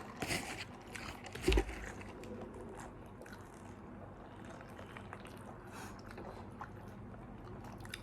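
Faint eating and drinking noises, small clicks and sips over a steady fan-like hiss, with a low thump about a second and a half in as something is set down on the table.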